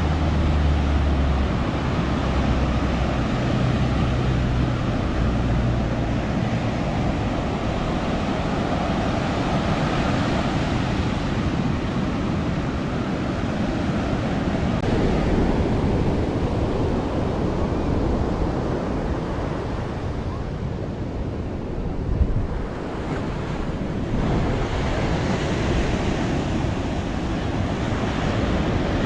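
Ocean surf breaking and washing onto the beach, with wind buffeting the microphone. A low steady hum sits under it for the first several seconds.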